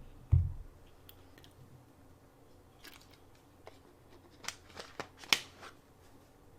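A low thump just after the start, then a scattered series of faint, sharp clicks and crackles, the loudest a little past the middle.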